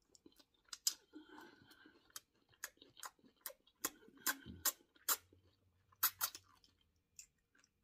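A person chewing a mouthful of food close to the microphone: a run of wet mouth clicks and smacks, several a second, with a brief low hum of the voice about four seconds in.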